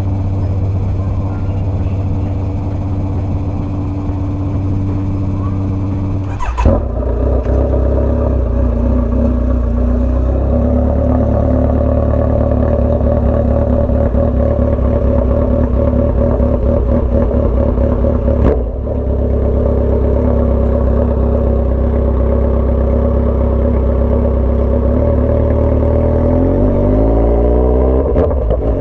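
Motorcycle engine running at steady revs under way, with a sharp click about six and a half seconds in and another around eighteen and a half seconds. Near the end the pitch rises as it accelerates.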